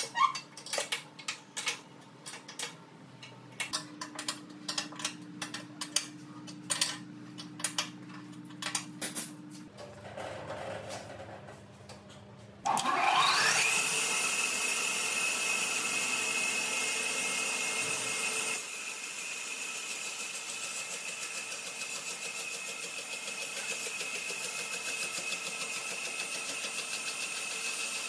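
Scattered clicks and knocks over a low hum, then about halfway through an electric motor starts: a whine rising steeply in pitch for about a second, then running steadily at speed.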